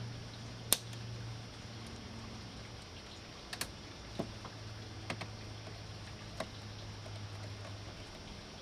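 Scattered sharp clicks and taps of hand tools and wire ends against the breakers and terminal screws of an electrical panel while wires are being connected. The sharpest click comes about a second in, with several lighter ones spread through the rest, over a low steady hum.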